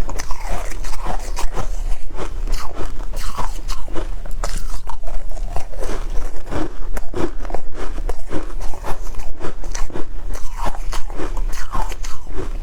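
Shaved ice being bitten and chewed close to the microphone: loud crunches several times a second.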